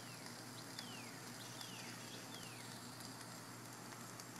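A bird calls four short, falling whistles about 0.7 s apart in the first three seconds, over a faint steady sizzle of chicken breasts cooking on an open charcoal grill.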